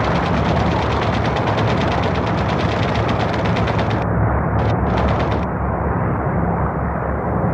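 Rapid machine-gun fire over a steady aircraft-engine drone. One long burst stops about four seconds in, a short burst follows about a second later, then only the engine drone is left.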